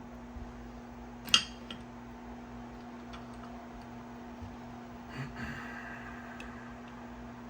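Workbench handling noise over a steady low electrical hum: one sharp click about a second in, then a short scraping rustle about five seconds in.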